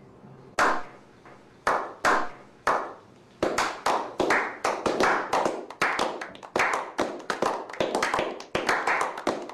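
Slow clap: single echoing hand claps about a second apart, then more hands join from about three seconds in. The clapping quickens into overlapping applause.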